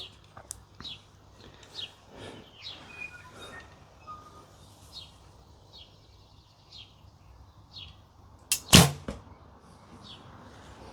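A recurve bow with wooden Nik'a S2 Windstorm ILF limbs, drawn at about 30 lb, being shot: one sharp snap of the string and limbs on release about three-quarters of the way through.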